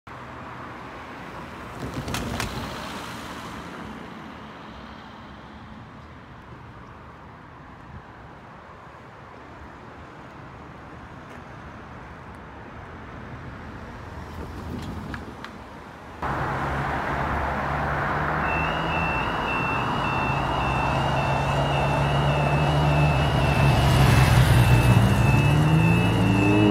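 Road traffic at a level crossing, with a car passing early. About two-thirds of the way in, the crossing's warning alarm starts, a two-tone wail switching back and forth between two high pitches. Near the end a vehicle's engine rises in pitch as it accelerates away.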